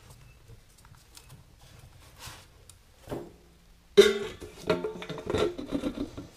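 Faint handling clicks, then from about four seconds in a sudden run of loud metal clanks with a brief ringing: the cast-iron Farmall hydraulic control housing knocking against a tin can as it is turned upside down onto it.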